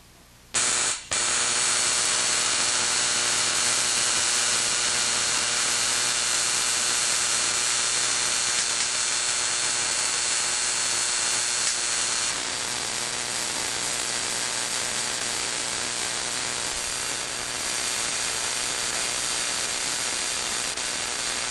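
Homemade spark-gap Tesla coil, fed by a neon sign transformer through a spark gap made of spark plugs, switched on about half a second in. It runs with a loud, steady buzzing hiss of sparks and a low hum, cuts out briefly about a second in, then carries on, slightly quieter from a little past halfway.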